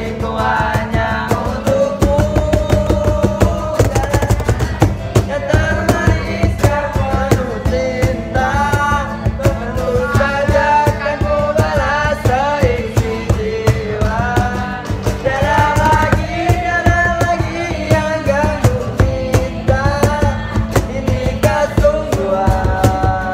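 Live acoustic band: a young man singing a melody over an acoustic guitar and a cajon slapped by hand in a steady beat.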